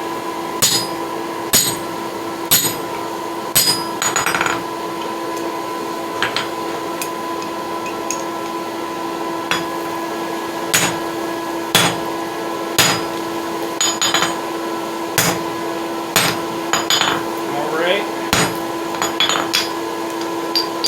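A 10-pound hammer striking a steel drift driven through the eye of a hot hammer billet: about fifteen ringing blows at roughly one a second, with a pause of a few seconds in the middle. A steady machine hum runs underneath.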